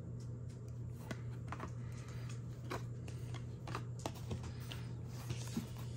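Light, scattered clicks and taps of stiff chromium trading cards being handled and flipped through by hand, over a steady low hum.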